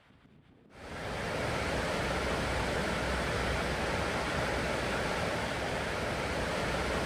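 Steady rushing noise that starts abruptly about a second in and then holds even.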